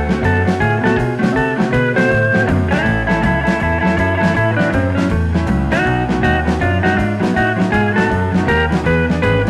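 Background music: a guitar-led blues-rock track with drums and a steady beat.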